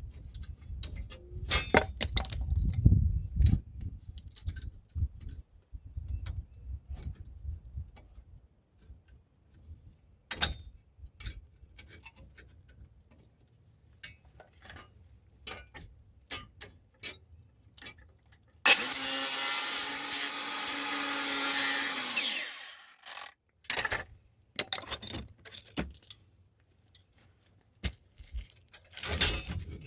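Tools and metal parts clicking and knocking, then, about two-thirds of the way in, a power tool runs steadily for about four seconds and stops.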